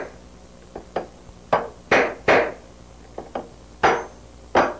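Ball-peen hammer striking a socket set into the end of a tube, flaring the tube end: a run of about nine sharp metallic knocks at an uneven pace, a few light taps among five hard blows.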